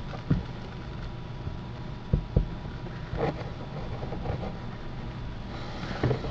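A few short plastic knocks and clicks from prying the old rear-deck speaker cover loose with a flathead screwdriver, two of them close together about two seconds in. A steady low hum runs underneath.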